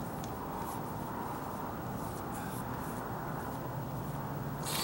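Paintbrush working a thick roof-sealer coating onto a deck floor: faint soft swishes of the brush strokes over a steady background hum, with one louder brief swish near the end.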